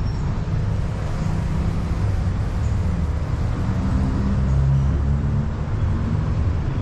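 Vespa scooter engine running on the move, under a steady low rumble of wind and road noise. The engine note strengthens a little about four to five seconds in.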